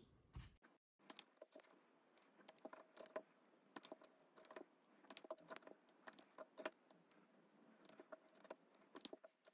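Small neodymium cube magnets clicking as they snap onto a steel screwdriver tip and are pushed into the pockets of a 3D-printed plastic bowl array. A faint, irregular run of light clicks.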